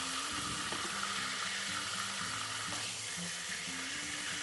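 Chunks of meat frying in hot oil in a stainless pan, a steady sizzle.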